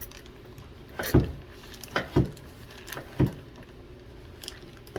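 Several dull knocks and thuds of kitchen handling, four of them spread over about three seconds, followed by a couple of light clicks.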